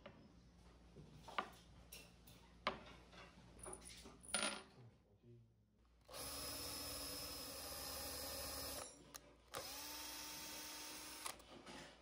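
Power drill boring into a walnut board through a drilling guide block, in two runs of about three and two seconds with a short pause between. Before it come three sharp knocks.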